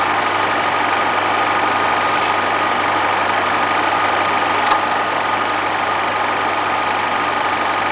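Film projector running with a steady mechanical whirr, hum and hiss, and one sharp click a little past halfway.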